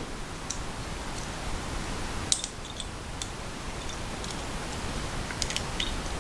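Light metallic clicks and taps from the parts of a Tangram Vector button lock folding knife being handled and fitted by hand, the sharpest about two seconds in and a few more close together near the end, over a steady hiss.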